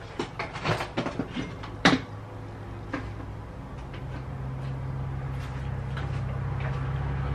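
Kitchen handling sounds: a quick run of light clicks and knocks, the sharpest about two seconds in, with a few more after. Under them runs a low steady hum that grows slowly louder.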